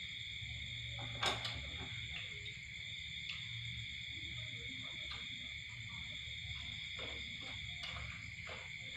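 Steady chorus of night insects chirring on several high pitches, with a sharp click about a second in and a few fainter clicks later, like chopsticks against a rice bowl.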